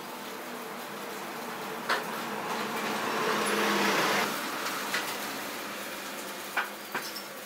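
Steady hissing background noise that swells louder for about a second and a half near the middle, with a few sharp clicks.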